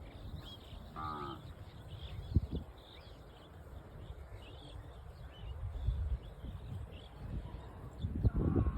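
Cattle mooing: a short call about a second in and a louder one near the end. In between there is low rustling, a single knock, and faint high chirping of insects or birds.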